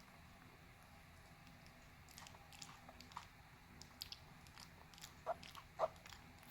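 A dog's mouth faintly smacking and clicking at irregular moments, starting about two seconds in, with two louder clicks near the end.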